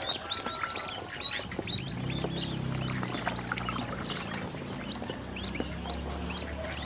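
A group of ducklings peeping continuously, many short high falling peeps overlapping in quick succession, with a low steady hum underneath from about two seconds in.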